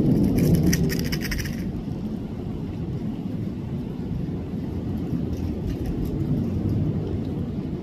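Low rumble of fighter jets' engines. It eases off over the first couple of seconds and then holds steady as the jets fly away. A brief run of clicks comes about a second in.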